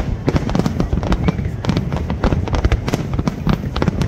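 Fireworks crackling: a dense, continuous run of sharp cracks, many per second, over a low rumble.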